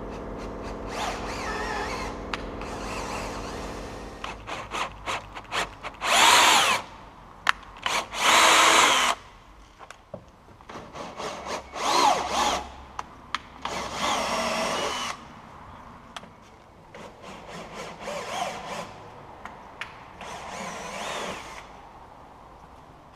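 Cordless drill driving a 10 mm tap (10×1.50 thread) into captive nuts in a van chassis to clean out their threads. It starts with a steady whine, then runs in a string of short, loud bursts with pauses between them as the tap is worked in and out.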